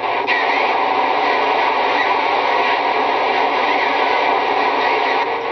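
Steady hiss of CB radio static (band noise) heard through the receiver between transmissions, coming on suddenly and dropping slightly near the end.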